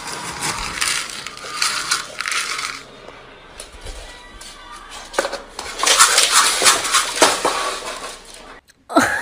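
Dry pet kibble rattling as it is scooped from a container, then a louder clatter of many pellets scattering onto a wooden floor about six seconds in.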